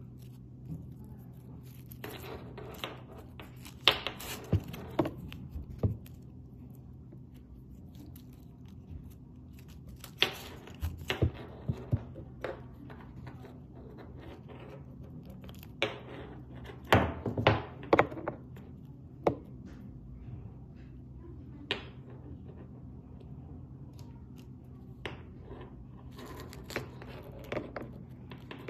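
Hands working a small cable splice with side cutters and tape: scattered sharp clicks, snips and rustles come in short clusters with pauses between them. A steady low hum runs underneath.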